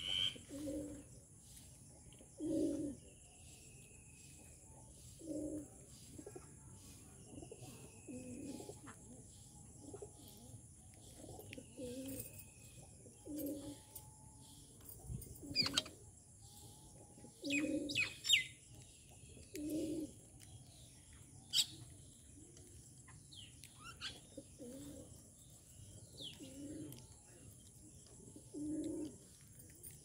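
A dove cooing over and over, one low call about every two to three seconds, mixed with scattered chirps and short higher calls from smaller birds. A few sharp clicks come through the middle.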